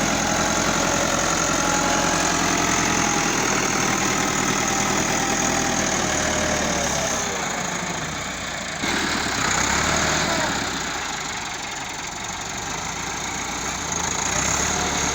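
Diesel engine of road-construction machinery running steadily, dipping about seven seconds in, then rising again abruptly about nine seconds in.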